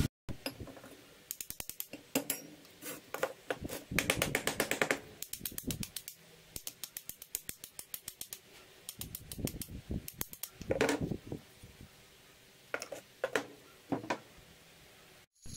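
Steel bolts, nuts and threaded rod of a homemade hand tool being handled and worked on a workbench: several bursts of rapid light metallic clicking and rattling with short pauses between them.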